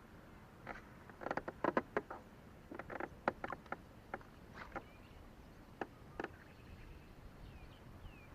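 Irregular light clicks and knocks, some single and some in quick clusters, mostly in the first six seconds, with a few faint high chirps near the end.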